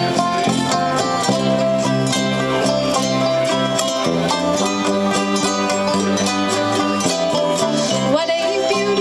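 Instrumental break in a folk-pop song: strummed ukulele and other plucked strings keep a steady, busy rhythm under a melody of held notes.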